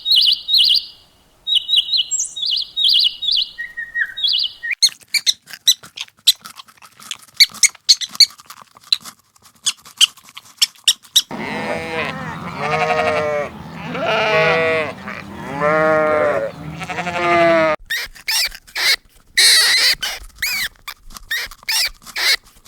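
Goats bleating: a loud run of wavering, pitched bleats through the middle of the stretch. Before them come high bird-like chirps and a scatter of clicks, and near the end high-pitched squealing calls.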